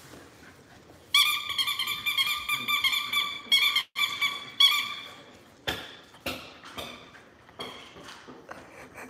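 Squeaker in a blue spiky rubber dog ball being squeezed by hand. It gives a high squeak from about a second in for about four seconds, broken twice. Then come a few light knocks as the ball is tossed and bounces on the floor.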